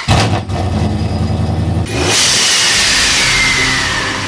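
A V8 engine running for about two seconds, then a cut to a loud rushing intro sound effect with a slowly falling whine.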